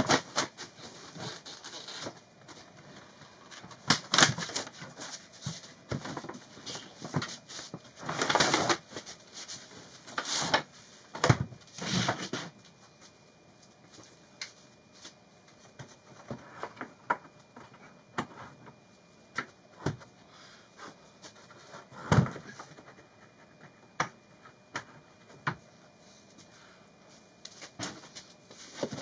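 Irregular knocks, thuds and scrapes from a plywood cabinet being tipped and moved by hand, the loudest in a cluster in the first half and one more after about 22 seconds, with lighter clicks as caster wheels are pushed into its base.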